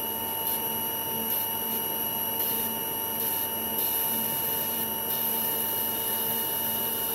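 Wire EDM machine spark-cutting a flute in a carbide end-mill blank: a steady electrical whine made of several fixed tones over a hiss, with a fainter hum that comes and goes.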